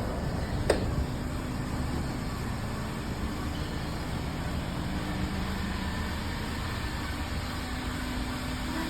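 Steady low rumble of a vehicle, with faint steady tones in it, and one sharp click just under a second in.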